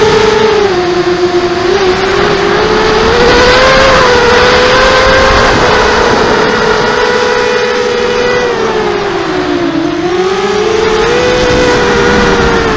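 Mini hexacopter's six electric motors and propellers whining in flight. The pitch rises and falls with throttle, dipping about three-quarters of the way through and climbing again. Wind rushes over the onboard camera's microphone.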